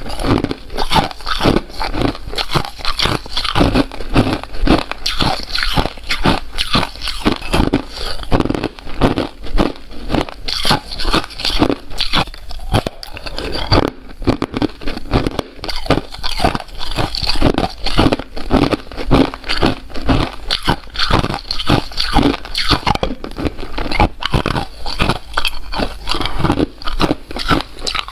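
Loud crunching of ice being bitten and chewed, a dense, continuous run of sharp cracks and crackles.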